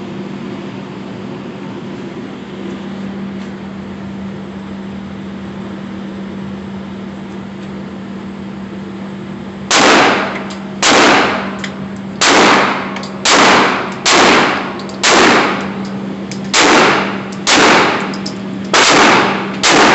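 A steady hum for about the first half, then about ten gunshots fired one after another, roughly one a second, each with a brief ringing tail.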